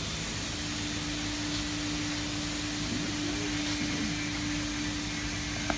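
Steady machine hum and rushing air noise, with a steady low tone that comes in about half a second in. A sharp click near the end.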